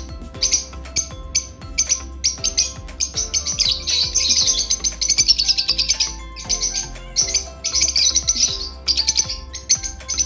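Lovebirds chirping: a quick run of short, high chirps that thickens into a dense, continuous chatter for a few seconds in the middle before breaking back into separate chirps.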